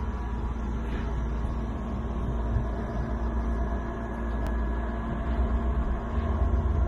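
Steady low mechanical rumble with a few constant hums, like a vehicle running.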